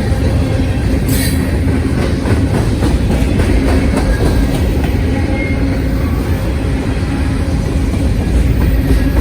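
Freight train cars rolling past on the rails: a loud, steady rumble of wheels on track with a few clacks.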